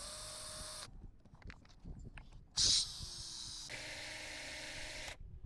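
Cordless drill with a Phillips bit running in two bursts, a short one and then a longer one of about two and a half seconds whose pitch sags a little, backing out bolts.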